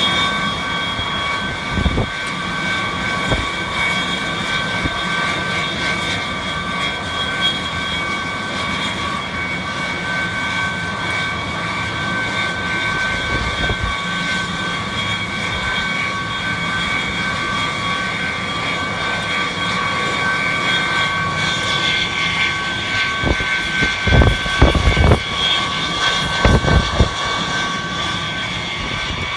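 Rail de-icing machine running steadily: a loud, continuous mechanical din with a high whine of several steady tones. Wind buffets the microphone in a few low gusts near the end.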